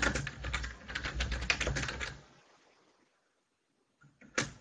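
Typing on a computer keyboard: a quick run of key clicks for about two seconds, then a pause, then two single clicks near the end.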